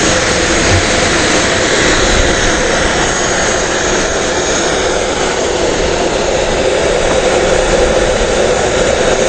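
Jet airliner's engines running, a steady even rushing noise with a faint high whine.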